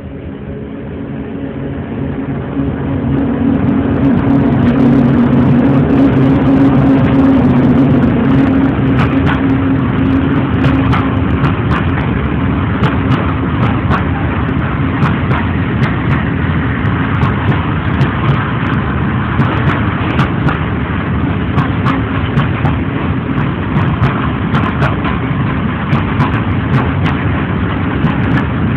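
ET41 electric locomotive passing close by, its loudness building over the first few seconds, with a steady hum that fades after about ten seconds. Then the train of loaded coal wagons rolls past with a continuous rumble and frequent sharp wheel clacks.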